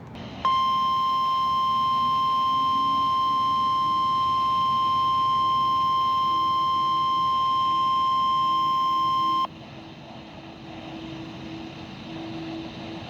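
NOAA Weather Radio warning alarm tone, a steady 1050 Hz beep sent for the weekly test. It starts about half a second in, holds for about nine seconds, then cuts off sharply into radio hiss.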